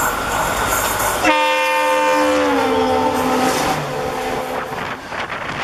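The horn of the oncoming WDP4D diesel locomotive starts about a second in and drops in pitch as the locomotive passes close by, fading out after a few seconds. Behind it is the rush and clatter of two trains crossing at speed on adjacent tracks.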